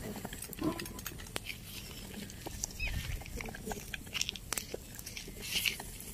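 Scattered sharp clicks and crackles from a small wood fire burning under a cooking pot, mixed with a metal ladle stirring in the pot.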